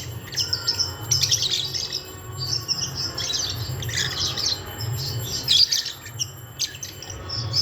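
Birds chirping and squawking in quick, harsh clusters of high calls as they fight.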